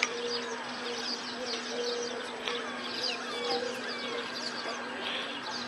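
Steady buzzing hum with many short, high chirps scattered over it, like small birds twittering.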